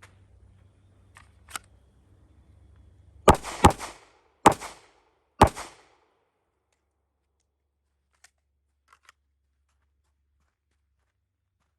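Four handgun shots: two in quick succession, then two more about a second apart, each with a short echo. A few faint clicks follow several seconds later.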